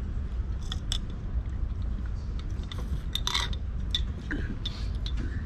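Soda being sipped through a metal straw from a glass bottle: a few short slurps and mouth clicks over a steady low background rumble.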